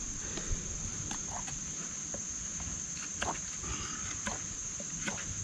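A steady high-pitched insect chorus runs throughout. About five short, sharp knocks come at irregular moments, fitting a Fiskars axe cutting a stick to a sharp point.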